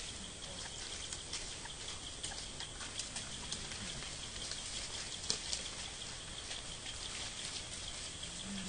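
A steady high insect drone with scattered small clicks and rustles of dry leaf litter as macaques shift and handle things on the ground; the sharpest click comes about five seconds in.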